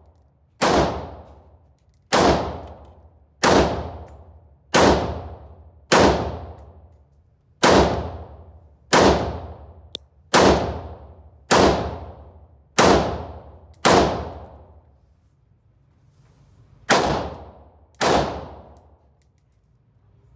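Ruger AR-556 semi-automatic rifle firing 5.56 mm 55-grain FMJ rounds one at a time, about thirteen shots roughly a second and a quarter apart, with a pause of about three seconds before the last two. Each loud crack rings out in the echo of an indoor range.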